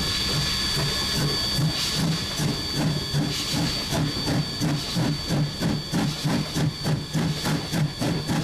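1910 Swedish-built E2 steam locomotive working under way: a steady rhythm of exhaust chuffs from the chimney, growing more pronounced about halfway through at about three beats a second, over a steady high-pitched hiss of steam.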